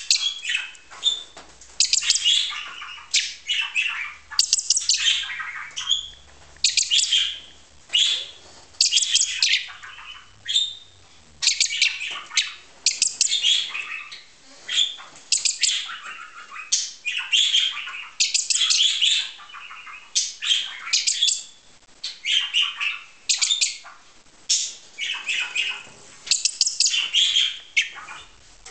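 Several budgerigars chattering and chirping in a steady run of short warbling bursts.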